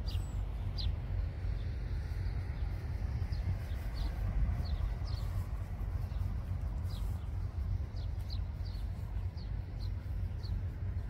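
Outdoor garden ambience: a small bird chirping, short high chirps roughly once a second, over a steady low rumble.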